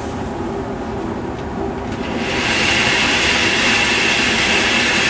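Indoor range's motorized target carrier running along its track, bringing the paper target back: a steady rumble, joined about two seconds in by a louder, steady whirring hiss.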